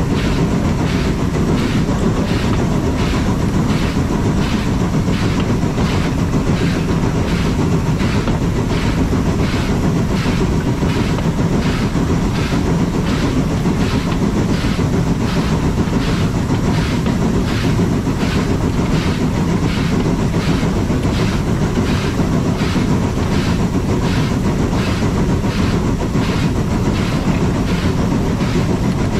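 Steam rack-railway train running steadily along the track: a constant low rumble with an even, repeating beat about twice a second.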